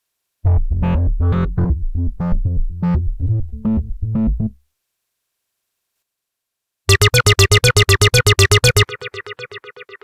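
Arturia Pigments 3.2 software synthesizer playing preset sequences. First an aggressive acid bass sequence with FM and phase distortion runs for about four seconds. After a short silence, a bright, distorted sequence of rapid repeated notes, about eight a second, drops to quieter repeats near the end.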